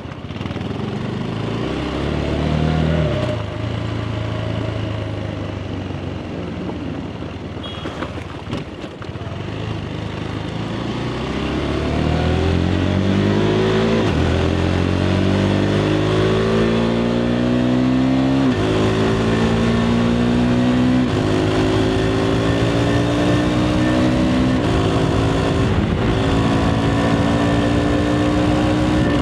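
KTM 390 Adventure's single-cylinder engine through its stock exhaust, at lower revs at first, then accelerating hard up through the gears. The pitch climbs in each gear and drops abruptly at each quickshifted upshift, several times in the second half.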